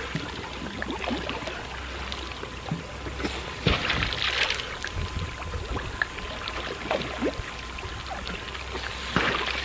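Sprinkler water spraying and pattering onto a pool's surface, with a louder burst of splashing about four seconds in.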